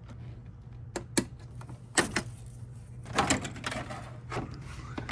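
Irregular clicks and knocks of hard plastic and metal parts being handled as the air intake is taken off the engine, with a quick cluster of clatter about three seconds in.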